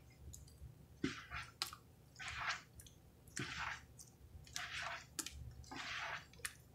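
Wet sponges soaked in creamy pine cleaner being squeezed by hand in a tub, squelching and crackling with foam. There are five squeezes, about one every second or so.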